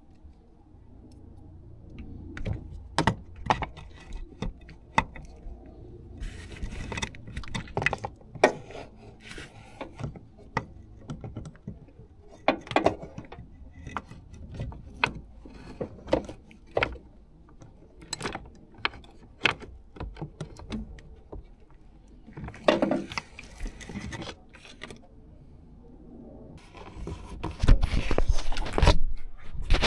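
Metal socket extension bars and a swivel clinking, knocking and scraping against engine parts as a taped-on 13mm socket is fished down toward a bolt, with heavier rubbing and knocking near the end.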